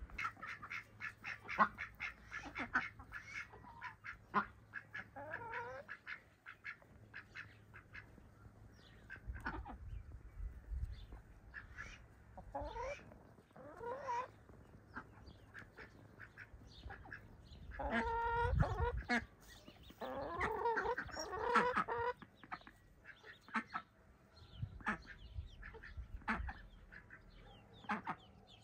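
Ducklings peeping in quick runs of short high calls, with louder, lower calls from an adult bird twice in the second half.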